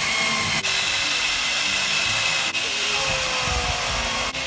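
Power saw fitted with a Prazi beam-saw chain attachment, running steadily as it cuts into a 12x12 cedar post, with three brief breaks in the sound.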